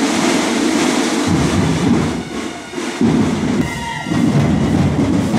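Loud, dense noise of an outdoor street celebration: a marching band's drums pounding under the hubbub of a large crowd.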